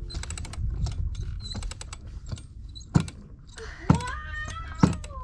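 Sailboat sheet winch ratcheting as its handle is cranked: a run of quick clicks, with louder clacks about once a second from the middle on. A drawn-out child's voice glides up and down in the second half.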